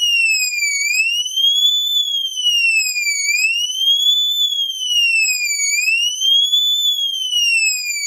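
Cerberus Pyrotronics MC-S17-F fire alarm horn/strobe sounding its siren tone: a super loud electronic wail that glides up and down in pitch, about one rise and fall every two and a half seconds.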